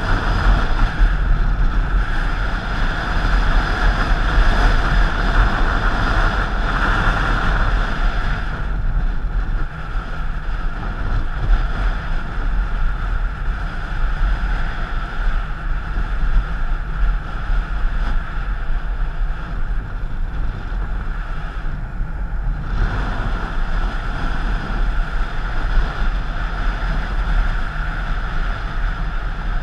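Wind buffeting the microphone of a moving vehicle: a loud, steady low rumble with a hiss that eases about nine seconds in and comes back about twenty-three seconds in.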